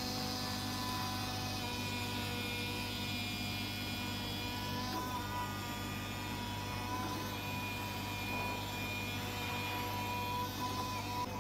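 Flatbed CNC cutting machine running as its head draws on the material: a steady drone with several whining tones above it that shift every few seconds as the gantry moves.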